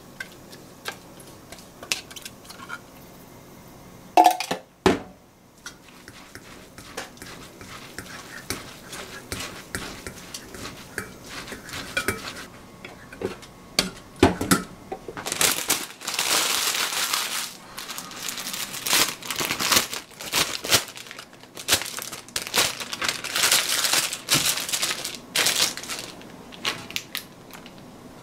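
Kitchen food-preparation handling: light clicks and knocks, a sharp loud clatter about four seconds in, then repeated loud rustling bursts through the second half.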